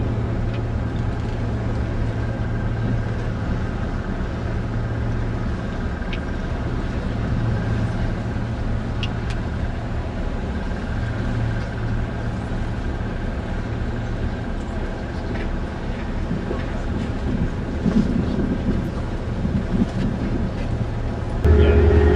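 Tour boat's engine running at a steady low drone. Near the end it gets louder as a steady hum comes in.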